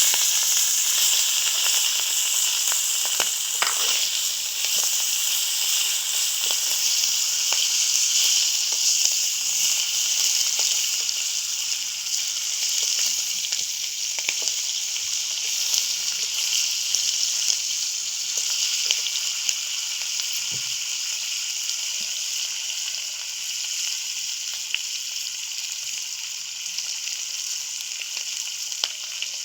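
Hilsa fish heads frying in hot mustard oil: a steady sizzle with scattered small crackles and pops, slowly easing off.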